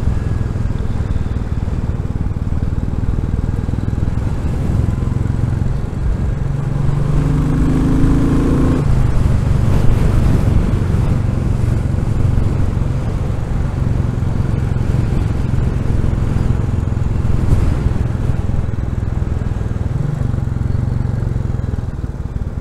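Royal Enfield Classic 350's single-cylinder engine running under way, with strong wind buffeting the microphone. About seven seconds in the engine note rises as it accelerates, then drops abruptly a little before the nine-second mark, as at a gear change.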